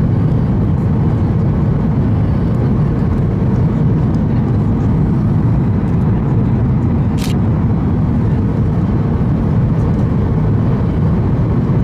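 Steady cabin roar of a Boeing 737-800 on approach with flaps extended, heard from a window seat: deep, even engine and airflow noise with a faint steady hum. There is one short click about seven seconds in.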